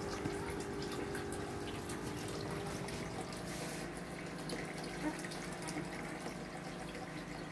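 Water running steadily, with a steady hum underneath.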